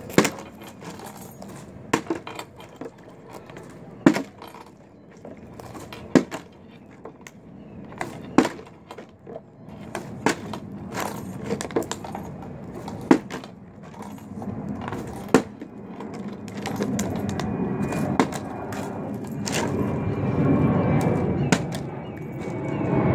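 Partly filled plastic water bottle flipped again and again, landing with a sharp clack on a hard surface roughly every two seconds. A low rumble grows louder in the last third.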